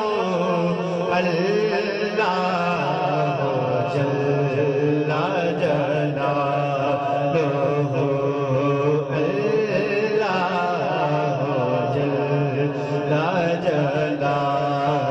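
Unaccompanied naat singing: a male lead voice sings long, winding melodic phrases over a steady low drone held by backing voices.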